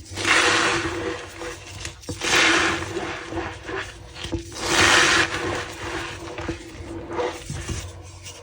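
Reformed gym chalk blocks being crushed and crumbled, with three louder crunches about two seconds apart and fainter crumbling in between.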